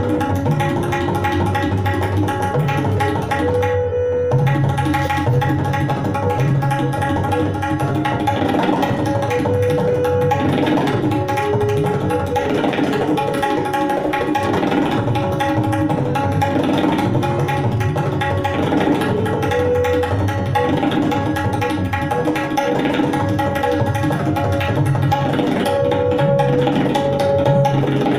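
Tabla solo: a tisra jati kayda, a theme in threes, played in dense continuous strokes on the tabla pair, with deep bass strokes from the bayan that bend in pitch. A harmonium holds a recurring melody underneath as accompaniment.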